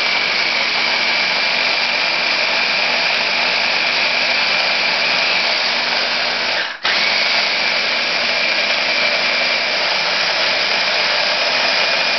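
Small press-top electric blender running under hand pressure, chopping tuna salad with a steady high motor whine. It cuts out for an instant about seven seconds in and starts straight up again.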